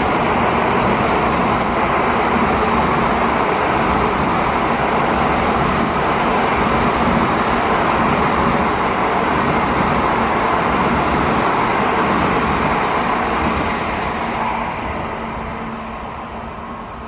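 N700-series Shinkansen train running past: a loud, steady rush with a low hum underneath, fading away over the last few seconds as it moves off.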